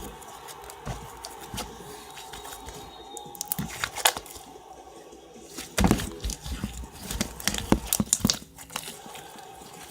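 Hands stretching and squishing slime, giving irregular crackles and pops, thickest in the second half.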